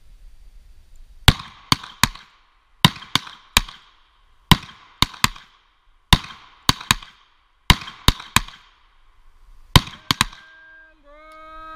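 Revolver shots in timed fire: six loud shots about a second and a half apart, each followed within a second by two quieter gunshot reports.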